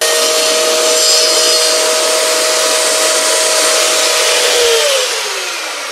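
Table saw switched on and running with a steady whine while a strip of MDF is cut. It is switched off about five seconds in, and the pitch falls as the blade spins down.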